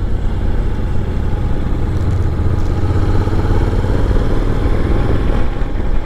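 Honda NC750's parallel-twin engine running steadily under way, mixed with a heavy low rumble of wind and road noise on the rider's microphone.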